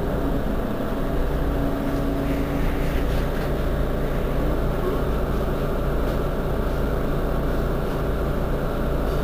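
Mercedes-Benz Citaro G C2 articulated bus's engine idling steadily while the bus stands still, a low even rumble.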